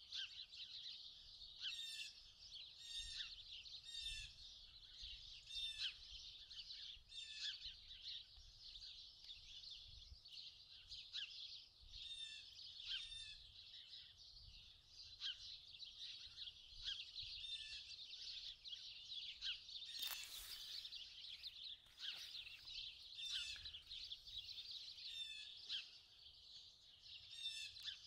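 A faint, dense chorus of many small songbirds chirping and calling at once, with sharp repeated notes about once a second. A brief rush of noise cuts across about twenty seconds in.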